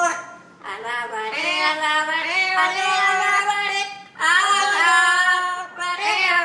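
Pet parrot singing: drawn-out, wavering pitched notes in song-like phrases, with short breaks about half a second and four seconds in.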